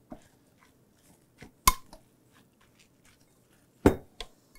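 A measuring cup pressed into shredded zucchini in a stainless steel strainer to squeeze out its water, knocking against the metal now and then. There is a sharp clink with a brief ring about a second and a half in and a heavier knock near the end, with a few faint taps between.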